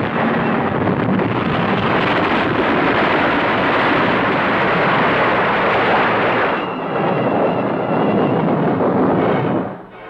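Loud, steady rushing rumble of noise with no distinct tones, a sound effect standing for the earthquake on an old film soundtrack. Its highest hiss drops away about two-thirds through, and it fades out just before the end.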